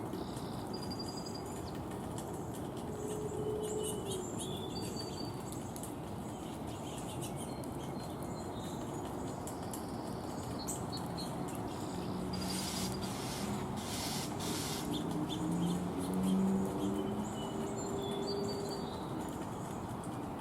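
Wild birds at a feeder: scattered short, high chirps over a steady background hum, with a couple of brief rustles or flutters partway through and some low, steady calls in the second half.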